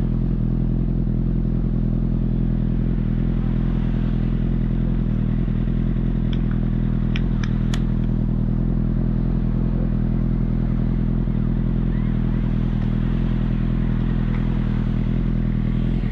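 Honda CBR1000RR inline-four idling steadily through a modified aftermarket exhaust with an enlarged mid pipe and silencer.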